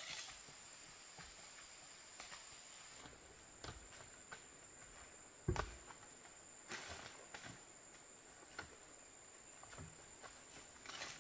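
Quiet outdoor background with a steady high-pitched insect chirr. Scattered light knocks and rustles sound through it, and a louder thump comes about five and a half seconds in.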